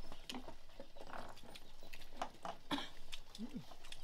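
Scattered light clicks and clinks of spoons and fingers against bowls and plates as several people eat, with a short low sound that rises and falls near the end.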